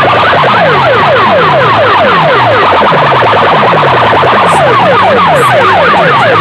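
A stacked wall of horn loudspeakers on a DJ sound-box rig blasting a siren-like effect: a rapid, unbroken train of falling pitch sweeps, about two a second, very loud.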